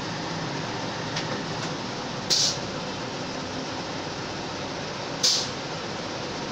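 Small bottle filling machine running with a steady mechanical hum, broken twice by a short, sharp hiss about three seconds apart, one for each bottle filled at the nozzle.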